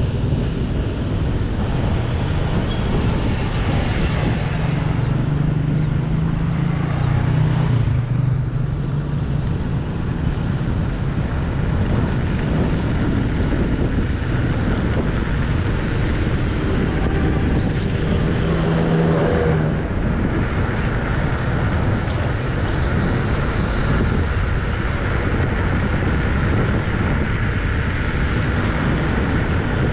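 Bicycle tyres rolling steadily on a road, a continuous rolling hiss mixed with road and traffic noise. A low hum swells up twice, around five seconds in and again near twenty seconds.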